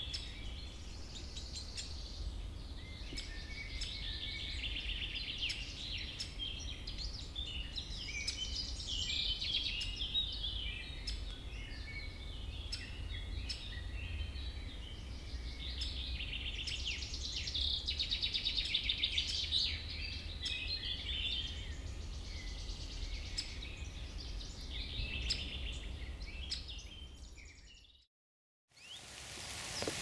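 Common chiffchaff nestlings begging in the nest with rapid, high-pitched chirping and trilling calls while being fed, loudest a little past halfway, over a low steady rumble. The sound cuts off abruptly near the end.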